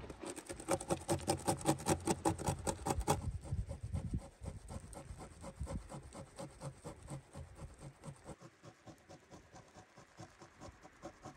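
A block of raw white animal fat being grated on a cone-shaped stainless steel grater: quick rhythmic rasping strokes, about three a second, louder for the first three seconds and then softer.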